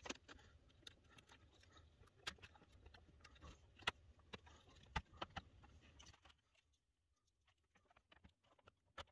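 Faint handling noise with scattered small clicks and taps: a small replacement speaker and its push-on wire connector being fitted inside a plastic computer case. It goes quieter after about six seconds.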